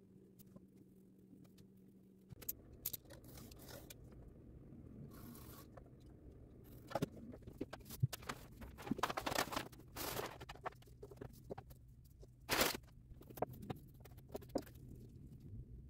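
Handling sounds of stiff white board being laid on a wooden desktop and fitted into a wooden picture frame: scattered clicks, taps and short scrapes. The loudest is a brief scrape about two-thirds of the way through.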